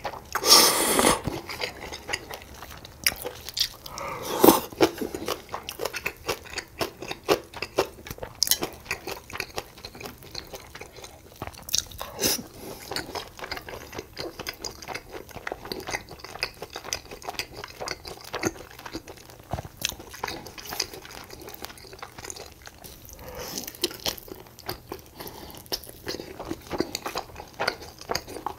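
Close-up sounds of a person eating: crunching, biting and chewing food in a run of short, irregular crackles. The loudest crunches come in the first second and about four and a half seconds in.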